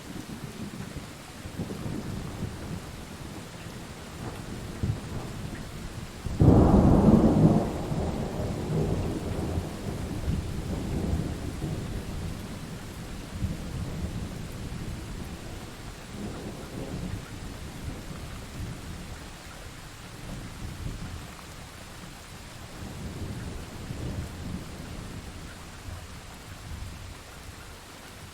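Steady rain with low rolling thunder. About six seconds in a loud thunderclap breaks, and its rumble fades away over the next few seconds.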